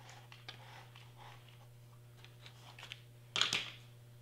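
Glitter cardstock rustling and crackling with light clicks as it is lifted and handled over a hot glue gun, then a louder, brief swish about three and a half seconds in as the sheet is laid down flat.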